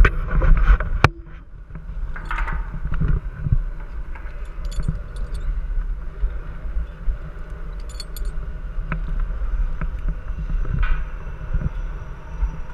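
Metal climbing gear and hardware clinking and knocking against a steel power-line pole, with a few sharp knocks in the first second and short jingles around five and eight seconds in, over a steady low rumble.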